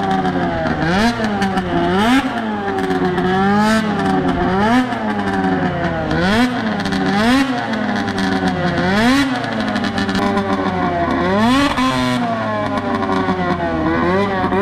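Two-stroke snocross race snowmobile engine revving up and down over and over, its pitch climbing and dropping about once a second.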